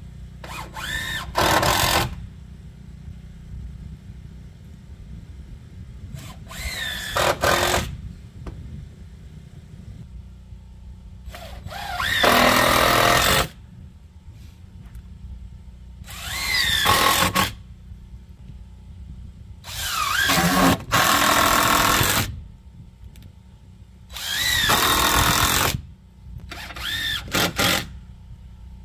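Cordless drill driving screws into a wooden deck frame, in about seven bursts of one to two seconds, each starting with a rising whine as the motor spins up.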